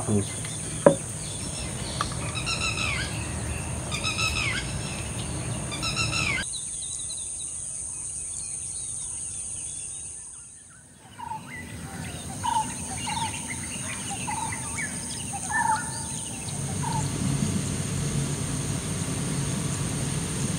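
Birds chirping and calling over a steady high insect drone. It fades out about ten seconds in, then birds call again in short repeated notes, and a low hum comes in near the end.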